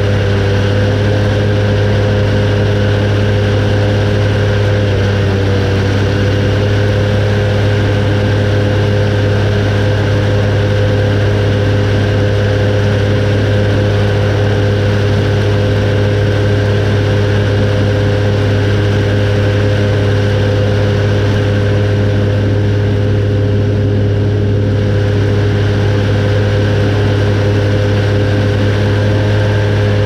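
Claas Arion 530 tractor with its Krone EasyCut F 320 front disc mower running steadily while cutting grass: a loud, constant drone with a steady whine over it. The pitch dips slightly about five seconds in.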